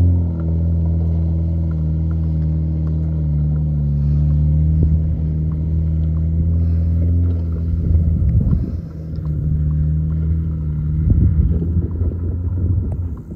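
Ford Bronco's engine through an MBRP stainless cat-back exhaust, pulling at steady revs up a steep dirt hill climb with a continuous low drone. Two short rough, noisy stretches come about eight and eleven seconds in.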